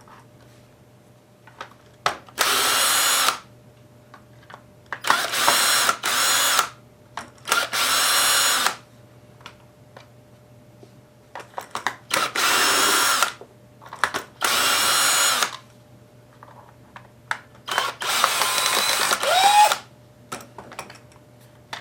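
A 19.2-volt Craftsman cordless screw gun running in short bursts of about a second each, about seven times, its motor whining as it backs screws out of another drill's housing. One burst near the end ends with a rising tone.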